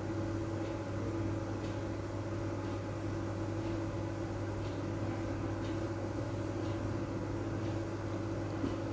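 Steady low hum with an even hiss under it, as of a small electric motor running. There are no distinct knocks or other events.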